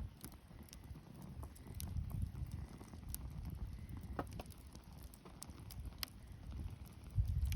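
Wood campfire crackling, with scattered sharp pops and snaps over a low rumble that grows louder near the end.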